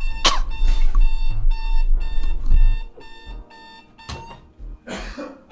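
Electronic alarm clock ringing with a steady, shrill multi-tone beep, interrupted by short hissing bursts from the pepper spray it fires when snooze is pressed. The ringing is louder for the first three seconds, then carries on more quietly.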